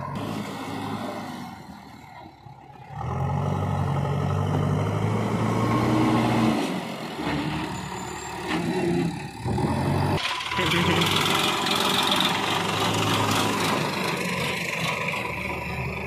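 Diesel engines of a JCB backhoe loader and a Sonalika tractor running and revving as they work, getting louder about three seconds in, with the pitch rising and falling and a couple of short dips.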